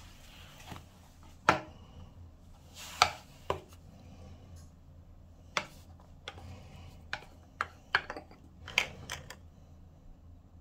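Sharp plastic clicks and taps as a squeeze tube of mold-remover gel is handled and its cap is taken off, exposing a brush-tip nozzle, about a dozen separate knocks with a quick cluster near the end, over a faint steady low hum.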